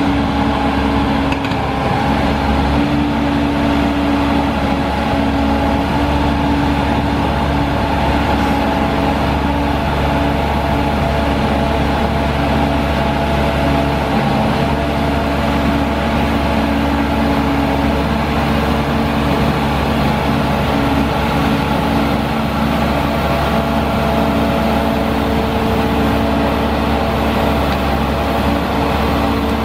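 The Caterpillar C7 six-cylinder diesel engine of a Sandvik DX680 crawler drill rig running steadily at a constant speed, a low rumble with a steady hum.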